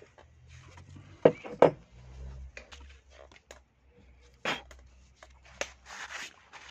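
GM12F carburettor body set down on a bench with two sharp knocks, followed by a few light clicks and a short rustle of a work glove being handled.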